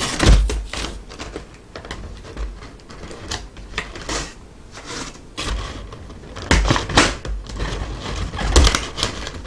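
Stiff clear plastic blister packaging being handled and flexed: irregular crackles, clicks and taps, louder about half a second in and again after about six and a half seconds.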